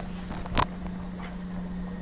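Kachoris frying in hot oil in a kadhai on a low flame: a soft sizzle with small ticks of popping bubbles, over a steady low hum. A single sharp knock sounds about half a second in.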